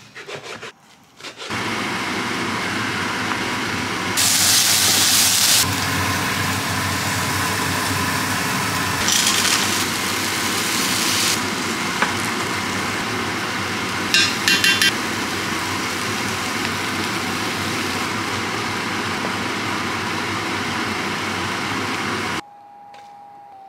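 A knife slicing bacon on a chopping board, then a steady, loud sizzle of bacon frying in a pan. The hiss flares up twice, and a few quick clicks come around the middle.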